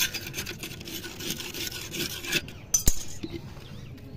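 A hand scraping and rubbing leftover soil out of the inside of an empty flowerpot: a dense rasping that stops about two and a half seconds in, followed by a single sharp knock.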